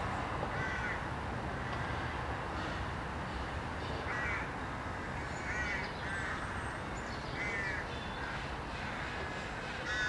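Crows cawing, single harsh calls every few seconds, over a steady hum of road traffic.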